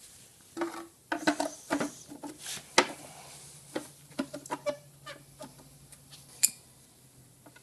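Handling of a plastic belt cover on a brake lathe: a brush scrubbing it, then irregular clicks and knocks as the cover is set back over the belt housing, with a sharper knock about 3 s in and another near the end.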